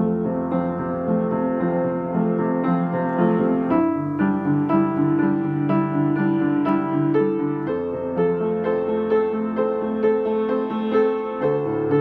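Piano playing a slow pop/classical piece: a steady stream of struck notes over bass notes that change about every four seconds.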